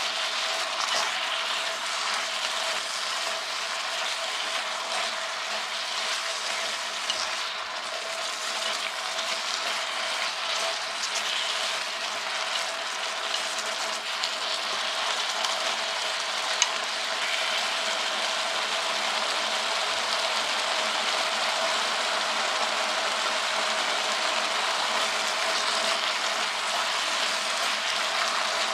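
Wild mustard greens and chicken sizzling steadily as they stir-fry in an electric hot pot, stirred with chopsticks, with an occasional sharp click.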